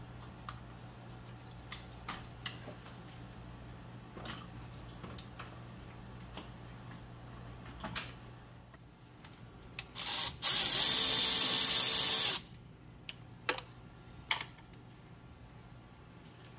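Light clicks and knocks of hand work under the hood, then about ten seconds in a power tool runs in one loud burst of about two seconds, after a couple of short blips, followed by a few more clicks.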